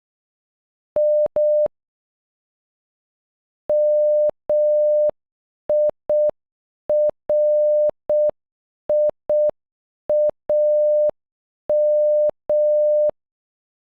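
Morse code beeps from a single steady electronic tone, spelling "MIRIAM" (-- .. .-. .. .- --) at a slow half-speed pace from about four seconds in. Two quick beeps come first, about a second in.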